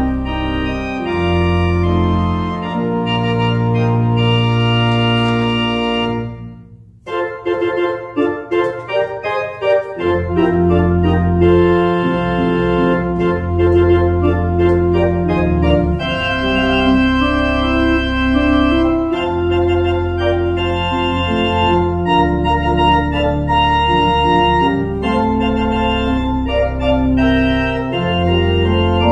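Organ music: slow sustained chords over long held bass notes. About seven seconds in it briefly drops away into a quicker run of notes without the bass, then settles back into slow held chords.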